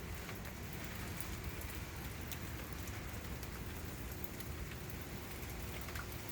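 Steady heavy rain falling, a constant hiss with scattered small drop ticks.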